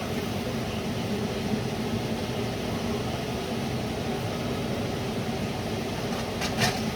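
Steady low mechanical hum, such as a fan or appliance running, with a couple of brief clicks near the end.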